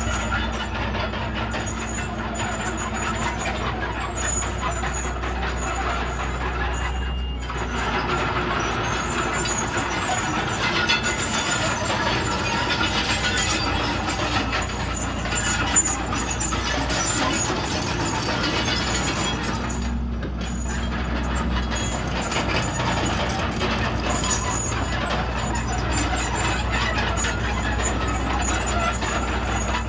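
Komatsu D31PX crawler bulldozer working: its diesel engine running steadily under load, with the clatter and squeal of the running gear, the sound thinning briefly twice.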